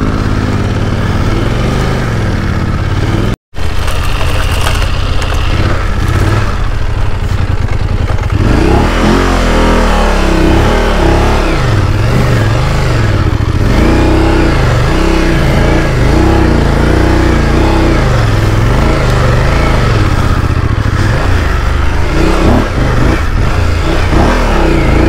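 Off-road motorcycle engine running hard, its revs rising and falling over and over, as the bike is pushed through deep sand.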